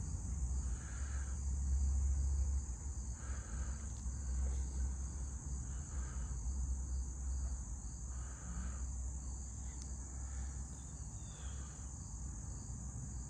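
Steady high-pitched trilling of an insect chorus, over a low rumble that is strongest in the first few seconds, with faint soft chirps every second or two.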